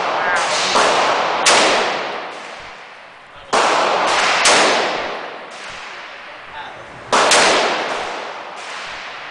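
Gunshots in an indoor shooting range, about six shots at irregular intervals, each a sharp crack followed by a long echoing decay in the enclosed range.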